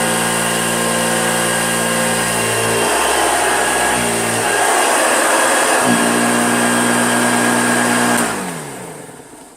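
Hoover Junior upright vacuum cleaner running, its motor hum shifting a few times. It is switched off about eight seconds in and the motor winds down to a stop.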